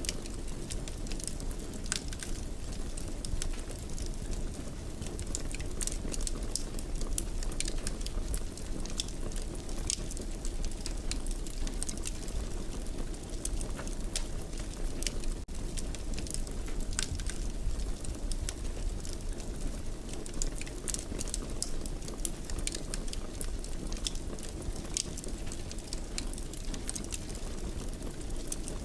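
Wood fire burning in a fireplace: a steady low rumble of flames with frequent small, sharp crackles and pops scattered irregularly throughout.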